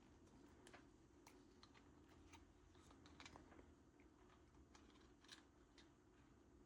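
Faint, irregular small clicks and ticks of a hand screwdriver driving a small self-tapping screw, over a quiet low room hum.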